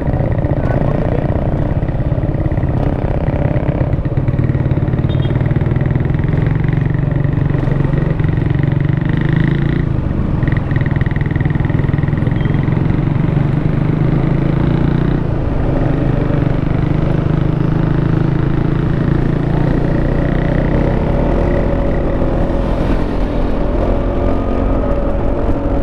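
Yamaha XMAX 300 maxi-scooter's single-cylinder engine running steadily under way, heard from on board. Its pitch dips briefly about fifteen seconds in and climbs slowly near the end as the scooter speeds up.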